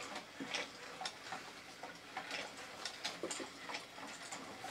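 Small battery-powered 3D-printed toy walking robots ticking and clicking as their motors drive their walking legs: a faint, rapid, uneven run of clicks, several a second.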